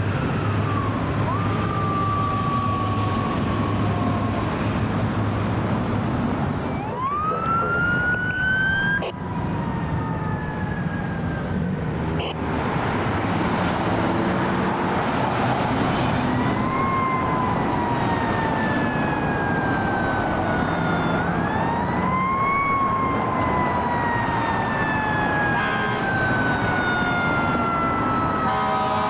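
Emergency vehicle electronic sirens wailing in repeated sweeps, each falling slowly over several seconds and then rising quickly, over the low running of a heavy vehicle's engine.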